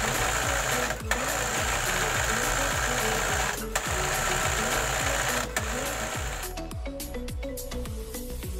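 Electric sewing machine stitching steadily, with a few very short pauses, stopping about six and a half seconds in. Background music with a steady beat plays throughout.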